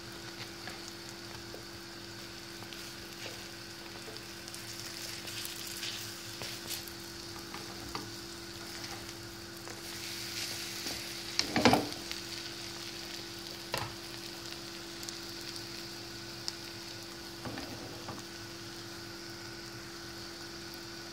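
Egg-and-milk-soaked bread slices sizzling as they fry in a pan, a steady crackling hiss with small pops. A few knocks of a wooden spatula against the pan, the loudest a little before halfway and another about two seconds later.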